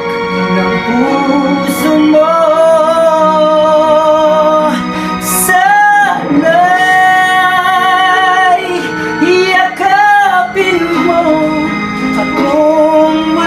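A man singing a Tagalog song over a karaoke backing track, holding long notes with vibrato.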